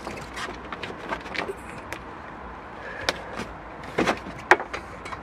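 Outer insulation sheath of a multi-core towbar wiring cable being bent and worked by hand until it splits along scored lines and is pulled off, giving scattered crackles and rustles with a few sharp clicks, the sharpest about three seconds in and two more around four seconds in.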